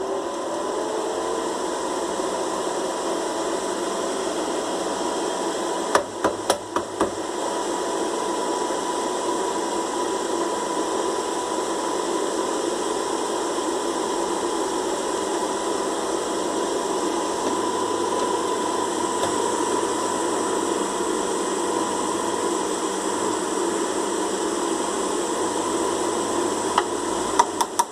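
Opened air fryer's fan motor running with a steady whir and a thin steady tone, with a few sharp clicks about six seconds in and again near the end. This is the strange noise the technician tentatively traces to a missing motor-mount screw that lets the motor run off-centre.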